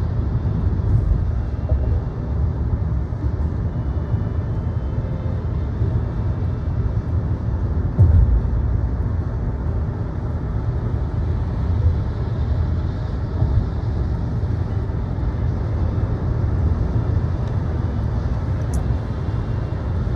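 Steady low road rumble of a moving car, with a single bump about eight seconds in.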